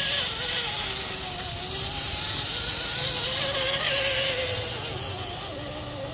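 Electric motor and drivetrain of a radio-controlled crawler truck whining, the pitch slowly wandering up and down as the throttle changes, over a steady hiss.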